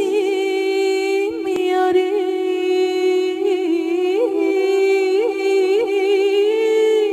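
A woman singing a slow, sustained melody with small ornamental turns over a steady held drone note.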